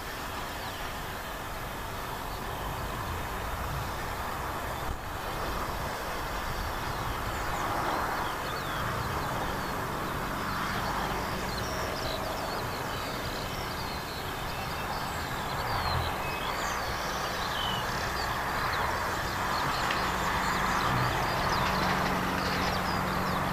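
Steam locomotive moving slowly, a steady hiss of steam over a low rumble.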